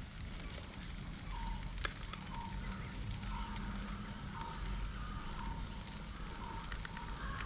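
Wood fire crackling under a wok of frying rice, with scattered sharp crackles over a steady low rumble. A faint short sound repeats about every half second throughout.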